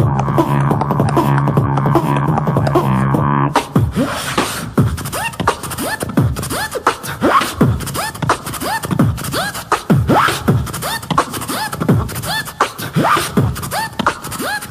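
Human beatboxing into a microphone, all made with the voice alone. It starts with a held low hummed bass note under rapid clicks. About 3.7 s in it switches to a fast rhythm of percussive clicks and kicks, laced with short pitch sweeps.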